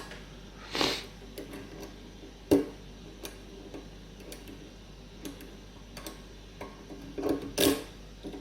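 Small irregular metallic clicks and scrapes of a lock pick and tension wrench working the pin tumblers of a brass padlock. There is one sharper click about two and a half seconds in, and louder handling noises near the end.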